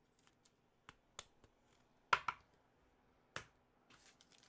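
Trading cards and a plastic card holder being handled and set down on a wooden table: a few sharp clicks, the loudest a double click about two seconds in, then a faint rustle near the end.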